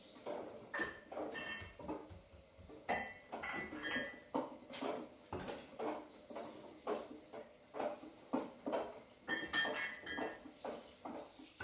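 Hard objects clinking and knocking again and again at an uneven pace, roughly one or two knocks a second, several with a short metallic ring.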